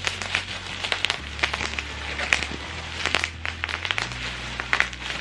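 Plastic packaging crinkling and crackling in irregular bursts as a parcel is unwrapped by hand.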